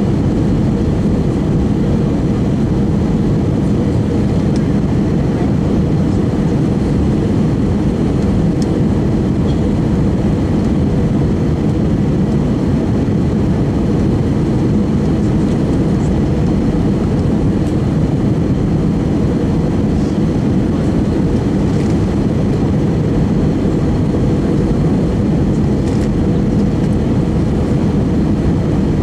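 Steady low roar inside the cabin of an Airbus A319 airliner on approach: engine and airflow noise, even throughout, with no changes.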